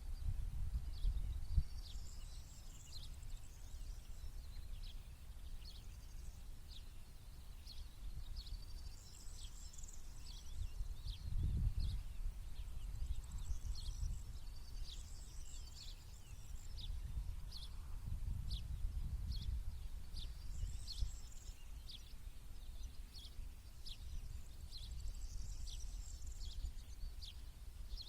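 Small birds singing: a steady series of short high chirps, about one or two a second, with a brief warbling song phrase every five seconds or so, over a low rumble.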